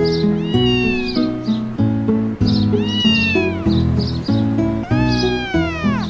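A cat meows three times, each long call sliding down in pitch at its end, the last one dropping steeply, over background music.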